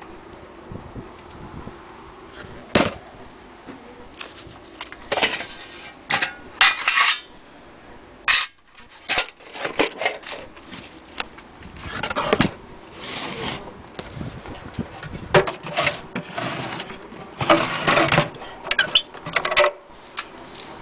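Irregular handling clatter: sharp knocks and clinks of metal and wood, with several longer rustling bursts, as an antique Willcox & Gibbs sewing machine, a stack of old papers and a wooden cover are moved about.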